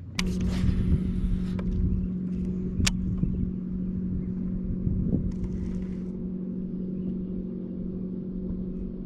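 A small electric motor on the jon boat switches on just after the start and hums steadily at one low pitch, over a low rumble. A single sharp click about three seconds in.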